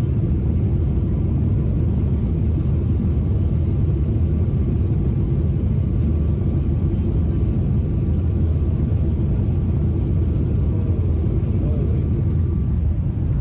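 Steady low rumble of jet engines and rushing air heard inside an airliner cabin in flight, with a faint high steady tone over it. Faint cabin voices can be heard near the end.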